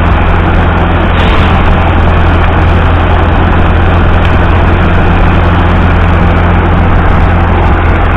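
A heavy engine running loud and steady at one speed, with a deep even hum.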